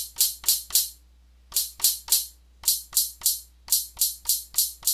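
Hi-hat sample tapped out on the pads of a Native Instruments Maschine drum controller: about fifteen short, crisp hits in quick runs of three to five with brief gaps between. It is being auditioned through a high-pass filter, so the hits are thin and bright with little low end.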